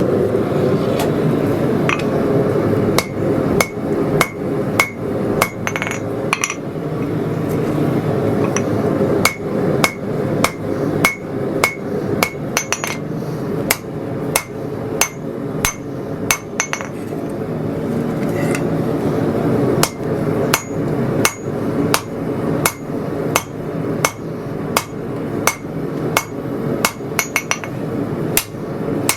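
Blacksmith's hand hammer striking hot 80CrV2 bar stock on an anvil, about two blows a second with short pauses, each blow ringing: drawing out the tang of a blade to gain length. A steady hum runs underneath.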